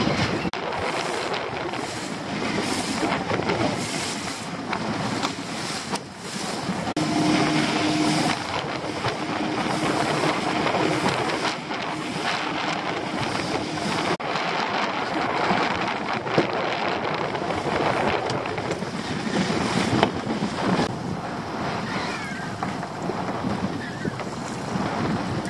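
Wind buffeting the microphone over water rushing and splashing against a small open fishing boat's hull as it runs through a choppy sea. A faint steady hum runs for several seconds midway.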